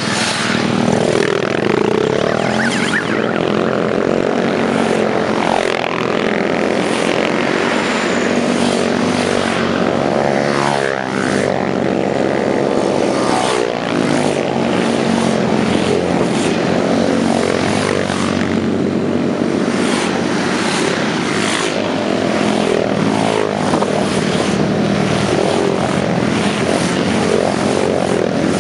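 Small motorcycle engine running steadily under way, with the pitch rising and falling as the revs change.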